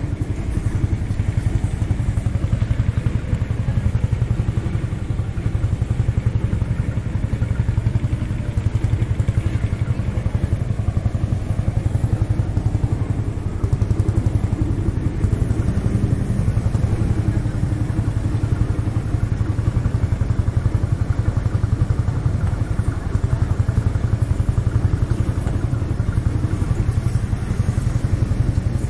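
Vintage tractor engine running steadily with an even, rapid beat.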